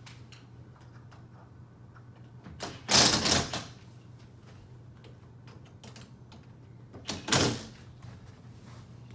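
Cordless screwdriver tightening the door frame's screws in two short runs, about four seconds apart.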